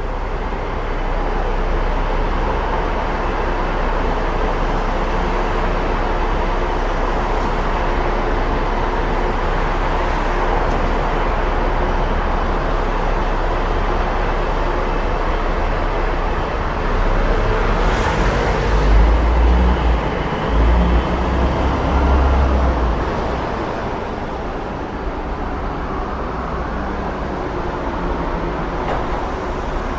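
Busy city road traffic: a steady wash of passing vehicles. About two-thirds of the way through, a short sharp noise is followed by a louder deep rumble lasting a few seconds as a heavy vehicle passes close.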